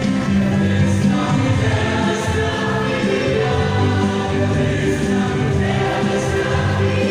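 A children's choir singing together, holding notes and moving between them without a break.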